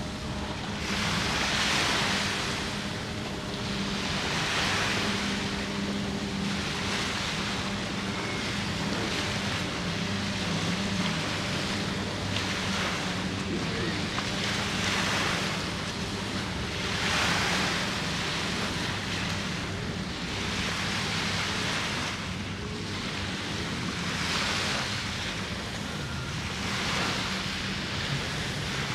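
Small waves breaking on a beach, the wash of surf swelling and fading every two to three seconds. A steady low motor hum runs underneath.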